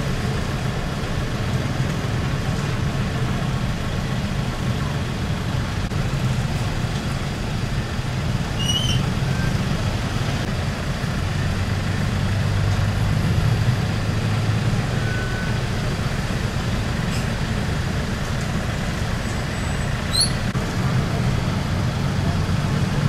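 Heavy trucks' diesel engines running amid road traffic: a steady low rumble that swells a little about midway through.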